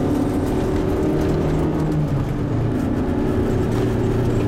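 Car engine running under steady load, with tyre and road noise, heard from inside the cabin of a rally car driving along a winding road. The engine note drops slightly about two seconds in.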